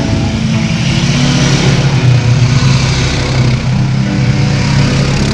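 Several ATVs (four-wheelers) passing one after another at close range, their engines running steadily as each rider drives by.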